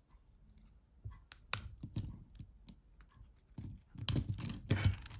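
Small hand tool clicking and scraping against a disassembled mobile phone's housing while prying at a stuck part: sparse sharp clicks at first, denser near the end.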